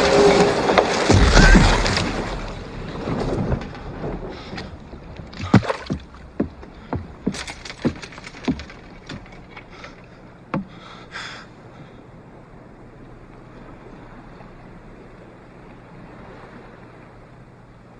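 The loud crash of a wooden sailboat's bow ramming a solid wall fades over the first two or three seconds. Scattered sharp knocks and creaks from the boat's deck and rigging follow for several seconds. Then there is only faint lapping water and wind.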